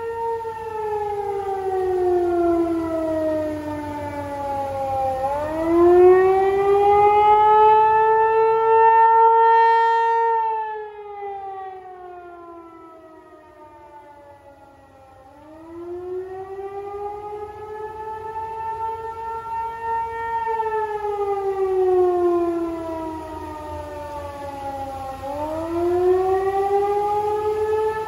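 Federal Signal 508 outdoor tornado warning siren sounding a wail: its pitch slides down and back up again about every ten seconds. Its loudness swells and fades, dropping away for a few seconds around the middle.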